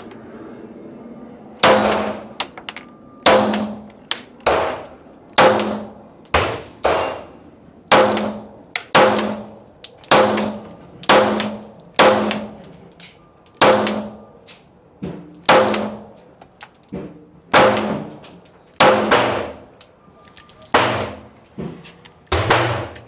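Pistol shots fired in quick succession, about one a second, each a sharp crack with a short ringing echo. Among them is a 9 mm Glock 19 emptying its magazine.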